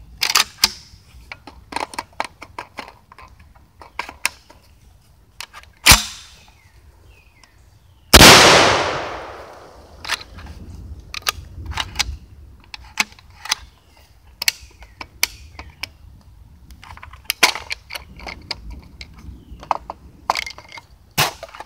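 SDS Lynx 12-gauge semi-automatic shotgun being handled with repeated metallic clicks and clacks of the magazine and action. About six seconds in comes a loud sharp shot. About two seconds later a second, bigger shot follows and echoes for about two seconds. The shells are light 7.5 birdshot loads.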